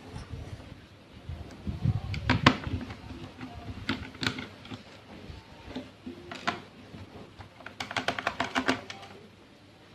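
Scattered sharp clicks and taps of a screwdriver and small screws on a laptop's plastic base as the base screws are taken out, with a quick run of about ten clicks near the end.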